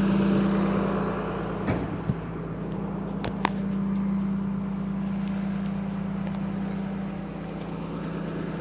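Garbage compactor truck's engine running with a steady hum. A few short sharp knocks and clicks come about two and three seconds in.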